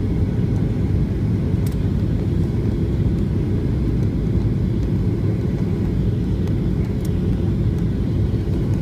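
Steady low rumble of a Southwest Airlines Boeing 737-700 jet airliner, with a faint steady hum coming in about two seconds in and two faint clicks.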